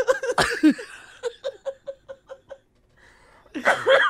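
A man laughing hard into a close microphone: a run of short, fading "ha" pulses, about five a second, then a brief pause and a louder burst of laughter near the end.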